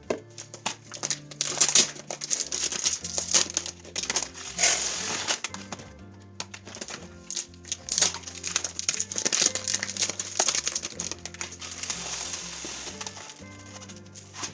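Background music with a steady bass line, over plastic packaging crinkling and rustling with small clicks and knocks as food supplies are handled and put away.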